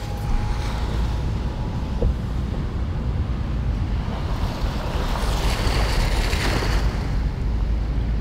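Wind buffeting the microphone over the rush of ocean surf, with seawater from a hurricane swell washing across sand. A brighter hiss of water swells up for a couple of seconds around the middle.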